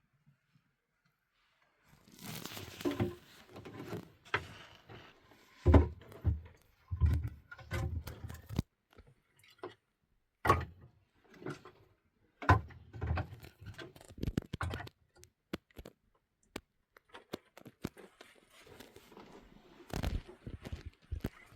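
Irregular knocks, thuds and scrapes with short gaps between them, starting about two seconds in. The loudest thud comes about six seconds in.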